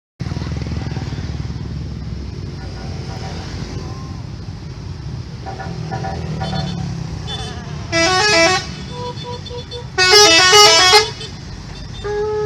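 Tour bus telolet horns playing a quick stepping multi-note tune in two loud bursts, about eight and ten seconds in, with softer horn notes just before, over the steady rumble of bus engines passing.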